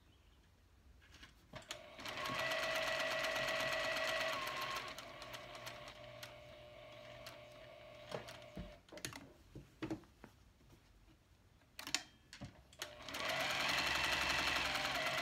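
Juki sewing machine stitching a curved seam in a fabric face mask, running steadily in two spells, about two seconds in and again near the end, with a quieter stretch after the first. Between the runs, a few sharp clicks as the fabric is handled and turned under the needle.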